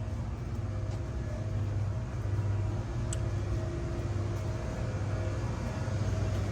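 Steady low hum of a shop's background noise, with one faint click about three seconds in.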